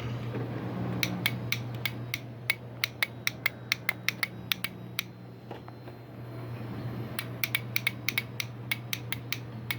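2005 Yamaha R6's starter relay clicking repeatedly, about three or four clicks a second, in two runs with a pause between, while the engine does not crank. A low steady hum runs underneath. The owner puts the no-start down to a burnt-out part or a faulty connection.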